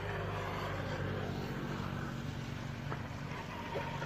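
A steady low engine drone, like a small motor running without change.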